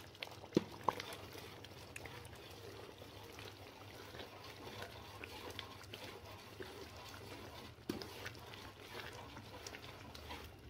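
A ladle stirring wet biryani rice in a large steel pot: small scrapes and knocks against the pot with the soft squelch of the rice and liquid moving, over a steady low hum.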